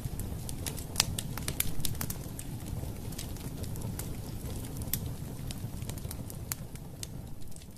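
Wood fire crackling in a fireplace: a steady low rumble with scattered sharp pops and snaps.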